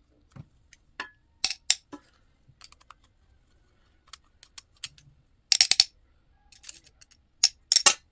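Scattered small clicks and taps of a flathead screwdriver and small metal parts on a snowblower carburetor, as the jet is worked loose. Quick rattling clusters of clicks come about five and a half seconds in and again near the end.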